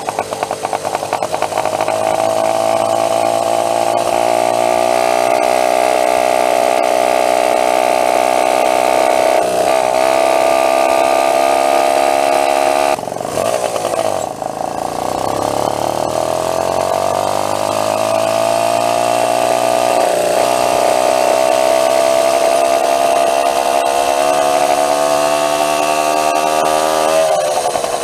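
Small gas engine of a homemade motorized bicycle running while the bike is ridden, its pitch climbing as it is throttled up. About halfway through it eases off and drops in pitch, then builds back up and holds steady before easing off again near the end.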